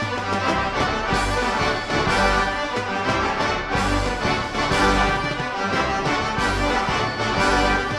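Theatre pipe organ playing a slow rock ballad, accompanied by a drum kit.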